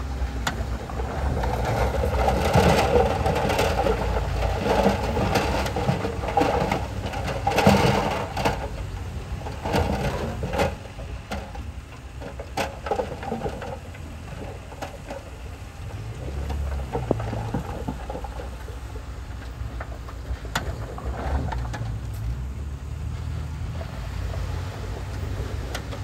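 Heavy diesel earthmoving machinery at work: an engine running steadily with many clanks and knocks, busiest and loudest in the first ten seconds, then settling to a quieter, steadier run.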